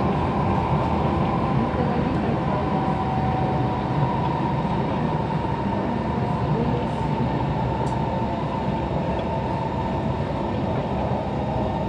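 Interior running noise of an SMRT C151 Kawasaki Heavy Industries metro train at speed: a steady rumble of wheels on rail with a faint whine from the traction motors.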